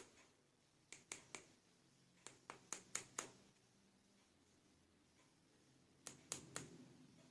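Sharp light clicks and taps of plastic toy pieces being handled, in three quick clusters of three to five clicks each, the last coming about six seconds in.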